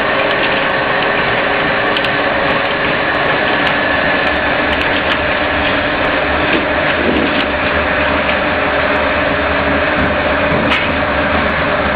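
Small flat-die wood pellet mill running under load, pressing sawdust into pellets: a steady, loud mechanical drone with scattered light clicks.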